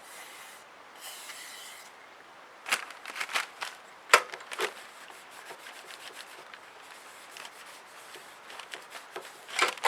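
Aerosol can of WD-40 spraying in two short hisses, about half a second and one second in, followed by scattered clicks and knocks of metal parts being handled, the sharpest about four seconds in and another near the end.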